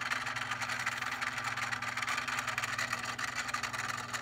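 LEGO table saw driven by a half-horsepower motor, running steadily with a hum and a whir while a LEGO brick is fed into its spinning blade.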